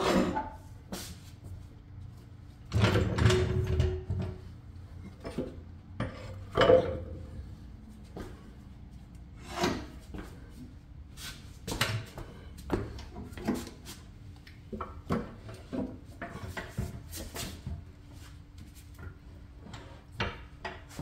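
Heavy steel RV entry step assembly being manhandled onto a plywood board on a trolley jack: irregular clunks, knocks and scraping of metal on wood. The loudest knocking comes about three to four seconds in, with a sharp knock near seven seconds, then lighter knocks.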